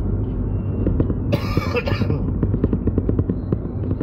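Steady low rumble of a moving car heard from inside the cabin. A brief noisy burst, such as a cough, comes about a second and a half in, and light clicks run through the middle.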